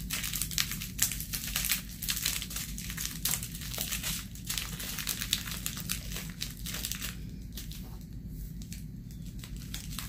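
Thin plastic bag crinkling and rustling as it is handled with loose diamond-painting drills. The crackling is busiest for the first seven seconds or so, then grows sparse and quieter.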